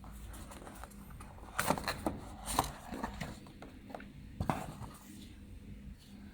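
Handling noise: a run of sharp clicks and knocks, several close together in the first half and one more a little later, over a low steady hum.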